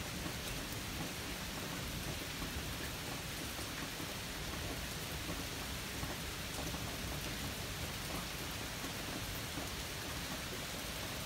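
Steady rain falling, an even hiss, with a low rumble of distant thunder dying away about a second in.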